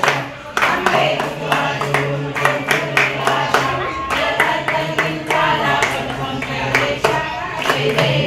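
A group clapping hands in time, about three claps a second, to devotional singing during an aarti.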